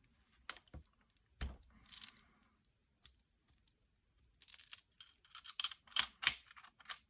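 Small hard clicks and clinks of mounting hardware being handled and fitted: a Unity-style riser going onto an airsoft rifle. A few scattered clicks at first, then a busier run of clicks in the second half with the loudest clack about six seconds in.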